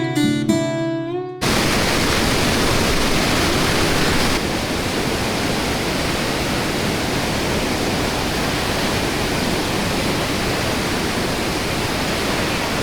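Acoustic guitar music that ends about a second and a half in, then the steady roar of the Iguazu Falls cascades, a dense rushing noise that eases slightly after about four seconds.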